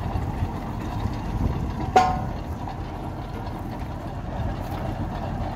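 Tubewell boring rig's engine running steadily, with a single sharp metal clank that rings briefly about two seconds in.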